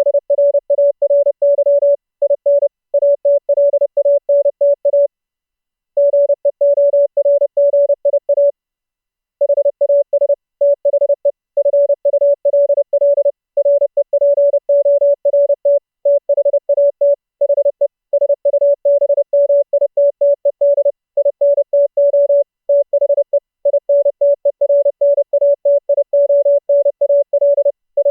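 Fast Morse code (CW) as a single tone of about 600 Hz keyed on and off, sending steadily with short gaps between characters and words and two longer pauses, about 5 and 8.5 seconds in.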